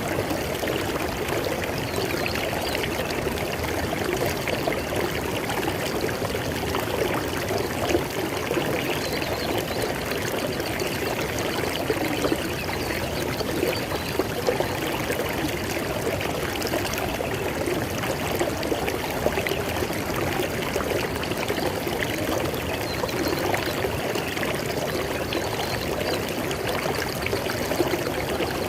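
River water flowing steadily over rocks, a continuous rushing and babbling with small splashes.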